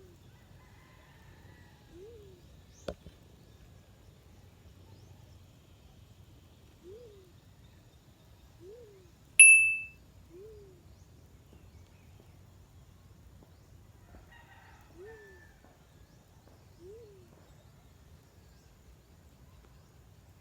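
Black-chinned fruit dove cooing: single low coos, each a quick rise and fall in pitch, repeated at uneven gaps of one to a few seconds. A sharp click about three seconds in, and a loud, short, bright ding a little before halfway.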